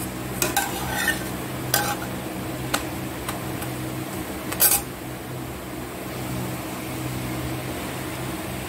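Steel spatula scraping and knocking against an aluminium kadai as a paratha is pressed and turned in it: a few short, sharp scrapes, the loudest about four and a half seconds in, over a steady low hum.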